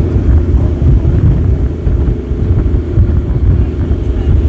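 Tour boat's engine running with a steady low drone, mixed with wind buffeting the microphone.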